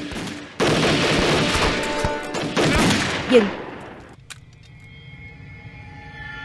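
Massed volley of rifle fire from a squad of soldiers: dense, overlapping shots that start about half a second in and die away about three and a half seconds in. Low music carries on after the shooting stops.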